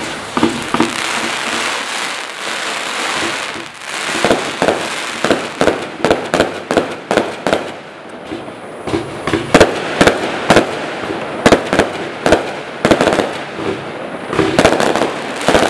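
Black Cat Afterparty 60-shot firework barrage cake firing: a rapid string of sharp bangs from shots launching and bursting, often a few a second, over a continuous hiss. The bangs thin out briefly just past the middle, then pick up again.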